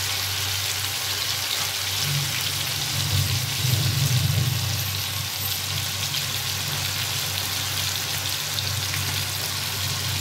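Marinated chicken pieces sizzling steadily in hot ghee and oil in a frying pan, with a low hum underneath.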